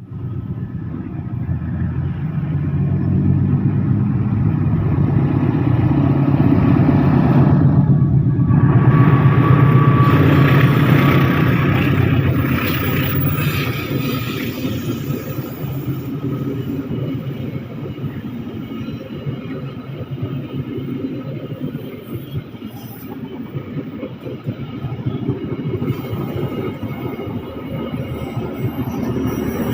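A train running along the rails: a continuous rumble of locomotive and wagons that grows louder to a peak about a third of the way through, then eases off to a steadier, lower run.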